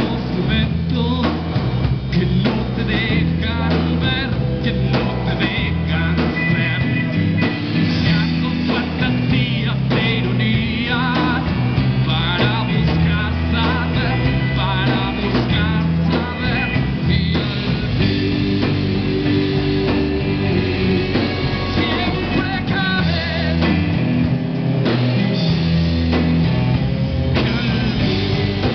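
Live rock band playing a song: electric guitars, keyboard and drum kit, with a singer's voice over them.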